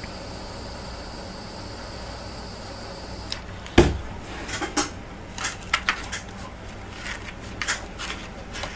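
A handheld torch hisses steadily as it heats a brass L-angle, then cuts off about three seconds in. A loud knock follows, then a run of light clicks and taps as the hot brass angle is set against the balsa and foam core of a model wing.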